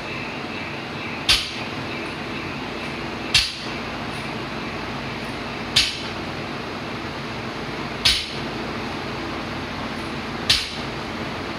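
Loaded barbell's weight plates striking a wooden lifting platform five times, about every two and a half seconds, as each rep returns to the floor, over a steady background noise.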